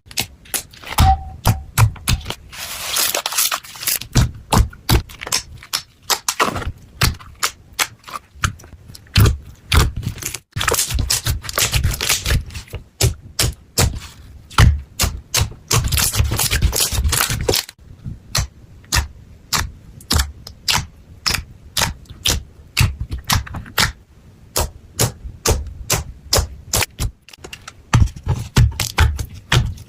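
Slime being squished and worked for ASMR: a rapid run of sharp pops and clicks, broken three times by longer stretches of crackling.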